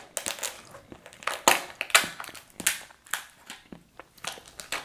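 Kitchen shears cutting through the shell of a cooked lobster tail, a string of sharp snips at irregular intervals.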